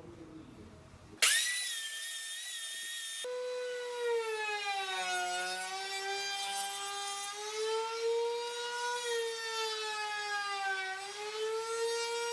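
Table-mounted wood router running, a high whine that starts suddenly about a second in. About three seconds in it settles to a lower whine whose pitch sags and recovers slowly as the bit takes load cutting the edge of a round wooden disc.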